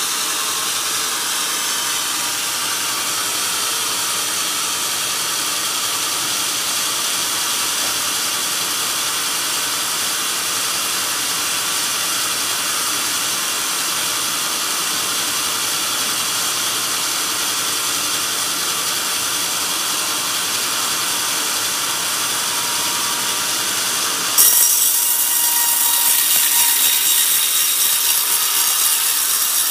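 Large band sawmill's blade running and cutting lengthwise through a coconut palm log: a steady sawing hiss with several steady high tones. About 24 seconds in the sound jumps suddenly to a louder, brighter hiss.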